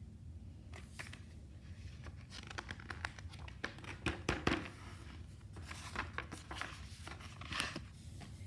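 Paper pages of a picture book being turned and pressed flat by hand: soft, scattered rustles and small taps, a little louder about four seconds in and again near the end.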